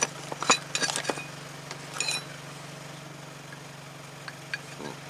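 Steel ball-joint press adapter cups clinking against each other as they are handled and tried for fit: three short metallic clinks that ring briefly, all in the first two seconds. A steady low hum runs underneath.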